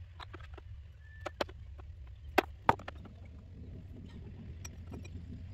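Sharp metallic clicks and clinks of a brake hose fitting and hand tool being worked at a car's front brake, the two loudest about two and a half seconds in, over a steady low hum.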